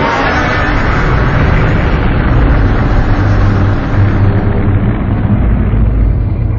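Godzilla roar sound effect, made slower and lower in pitch from Godzilla 2014 roars. It starts suddenly and holds as a loud, deep, rumbling roar whose hiss fades away over the seconds.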